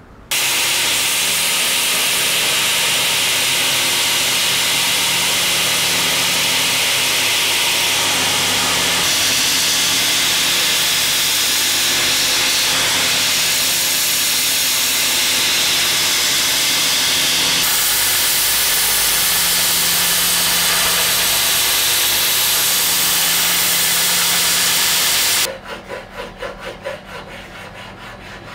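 Belt grinder running with a loud, steady hiss as a wooden knife-handle block is ground against the abrasive belt. It cuts off abruptly near the end, and a hand file rasps back and forth on the wooden handle in quick, even strokes.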